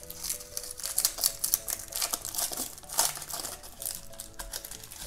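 Surprise-egg packaging being torn and pried open by hand: rapid crinkling and clicking, loudest about a second and three seconds in, over soft background music.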